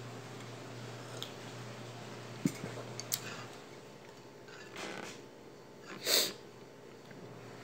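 A couple of light knocks as a cup is set down on a table, then two short breathy sniffs through the nose, the second and louder one about six seconds in. A steady low hum runs underneath until about three and a half seconds in.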